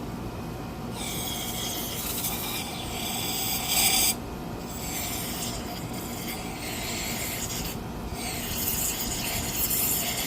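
Three spells of scratchy rubbing and scraping as the old grease is cleaned out of a brake caliper bracket's slide-pin bore.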